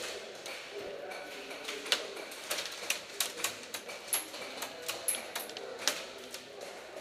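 Scattered sharp clicks and snaps of airsoft guns firing during a game, irregular and several a second in places.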